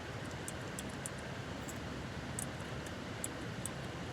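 Faint, sharp clicks of a keyboard fidget toy's keys being pressed, about eight at an irregular pace, over the steady rumble of a moving car's cabin.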